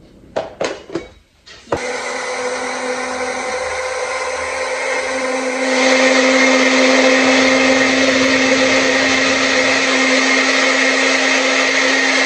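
Small single-serve blender puréeing tomatoes and onion into a sauce. Three brief bursts come first, then the motor runs steadily with a hum and grows louder about six seconds in.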